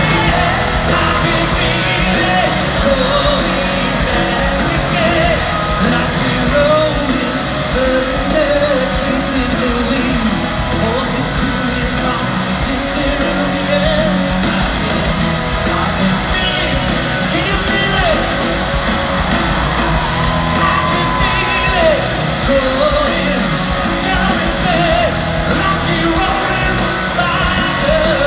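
Rock band playing live in a large hall, with electric guitars and a sung lead vocal, and the crowd yelling over the music.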